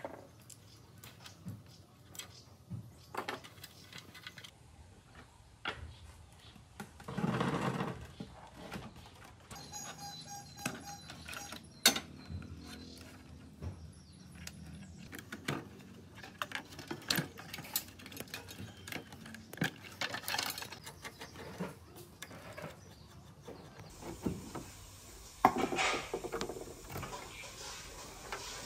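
Parts of a rusty steel computer case being handled and taken apart: scattered clicks, knocks and scrapes of metal and plastic as cable connectors are pulled and components shifted. There are louder bursts of rattling and scraping about a third of the way in and near the end.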